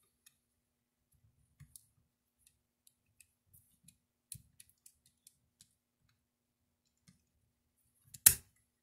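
Faint, scattered clicks and taps of small firearm parts being handled on the lower receiver of an IWI Galil ACE while the KNS Precision plastic delete is refitted around the safety, then one sharp, much louder click near the end.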